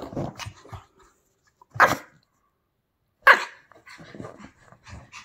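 Pomeranian rubbing and rolling on a fleece blanket, her fur rustling against the fabric, with two short, sharp sounds from the dog about two and three seconds in.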